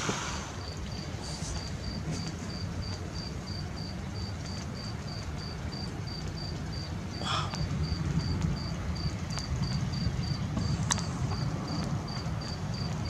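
A cricket chirping in a steady, even rhythm, about three high chirps a second, over a low background rumble.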